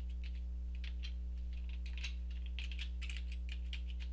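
Typing on a computer keyboard: a run of irregular key clicks, over a steady low hum.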